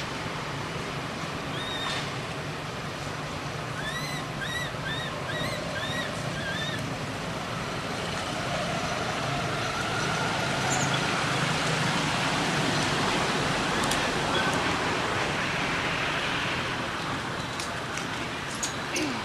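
Steady outdoor background noise with a low hum. About four seconds in comes a quick run of six or seven short, high, arched chirps.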